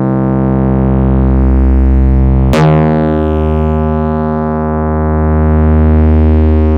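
Korg EX-800 synthesizer bass tone held as a steady low drone with many overtones. About two and a half seconds in, a new bass note cuts in with a sharp, bright attack and holds, slowly swelling.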